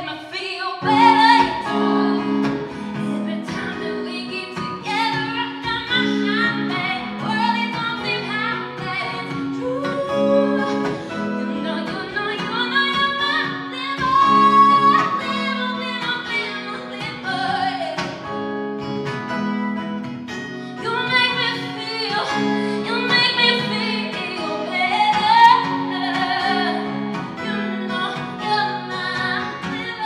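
A woman singing a song while strumming an acoustic guitar in a steady rhythm.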